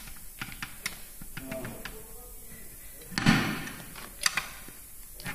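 Scattered metal knocks and clicks from mounting a stiff 18.4-26 tractor tyre onto its steel rim by hand, with one heavier thud about three seconds in and a sharp clink about a second later.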